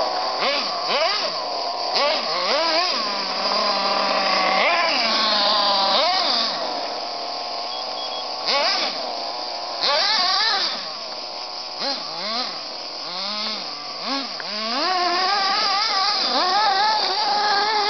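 Kyosho Inferno 1/8-scale RC buggy's motor revving up and letting off again and again as it is driven, its pitch rising and falling in quick swoops.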